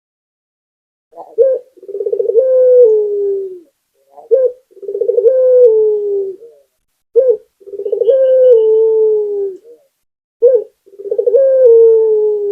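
Puter dove cooing: four phrases about three seconds apart, each a short sharp note followed by a long rolling coo that slides down in pitch.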